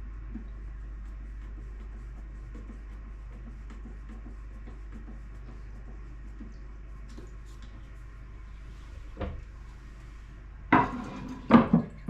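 Parts being handled during a toilet flush valve repair: faint clicks over a steady low hum, a single sharp knock about nine seconds in, then two loud knocks and clatter near the end.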